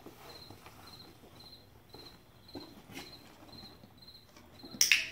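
A cricket chirping steadily, short high chirps at one pitch about twice a second. Faint knocks of tack and hooves, and a brief loud rustling burst near the end.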